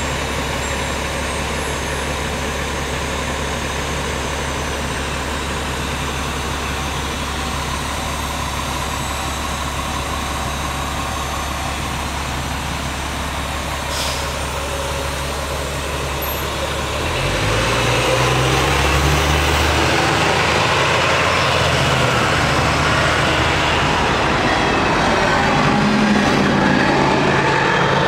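A large engine running steadily at a low hum, then speeding up and getting louder about two-thirds of the way through, staying at the higher speed.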